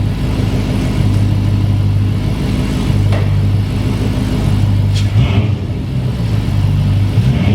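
Dodge Magnum's 5.7 Hemi V8 running on fresh spark plugs and wires, with a brief throttle blip about five seconds in that brings up intake noise.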